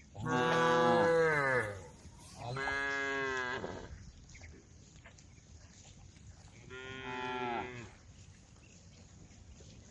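A cow mooing three times: a loud long call that slides down in pitch, a second call soon after, and a softer third call a few seconds later.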